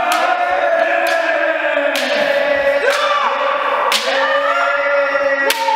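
Several kendo practitioners give long drawn-out kiai yells that overlap. Sharp cracks of bamboo shinai strikes land about once a second.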